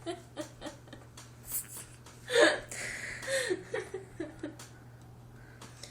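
Laughing and giggling, with one short, loud, sudden vocal burst about two and a half seconds in, then the giggling tails off.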